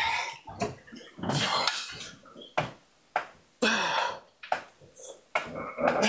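A man grunting and breathing out hard rep after rep on a hamstring curl machine. A loud effortful exhale comes about every one and a half to two seconds, some falling in pitch as a grunt, and a few sharp clanks from the machine fall between them.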